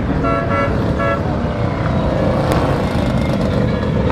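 Many motorcycle engines running together in a dense, steady mass, with three short horn toots in the first second or so.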